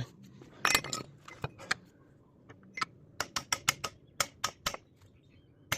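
A series of sharp, light clicks and taps: a few about a second in, then a quicker run of about four or five a second near the middle.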